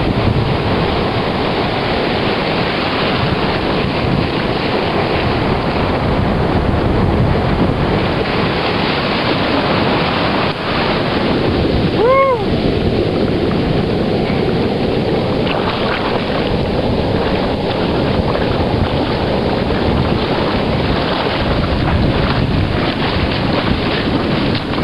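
Surf washing in and breaking, with wind buffeting the microphone. About halfway through, a short pitched call rises and falls.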